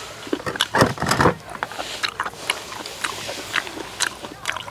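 Close-miked wet chewing and lip-smacking of people eating spicy stir-fried webfoot octopus, many short sharp clicks. A louder, fuller mouth sound comes about a second in.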